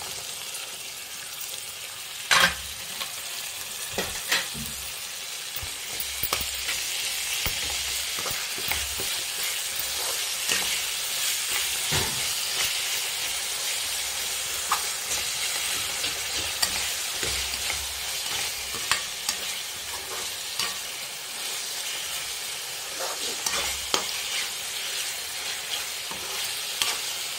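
Raw minced meat (keema) sizzling in oil with fried onions in a non-stick kadai, a steady hiss, while a spatula stirs and breaks it up, knocking and scraping against the pan. Two louder knocks come a couple of seconds in. This is the stage where the mince fries in the oil and starts to release its water.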